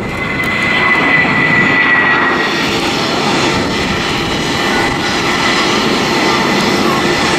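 Airbus A320 jet engines running: a steady roar with a high whine on top that fades away after about two seconds.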